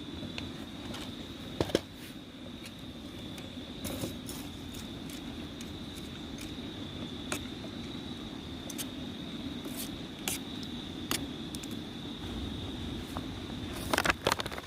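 Steady high-pitched insect chorus, like crickets, over a low steady noise, with scattered clicks and a short cluster of sharp knocks near the end.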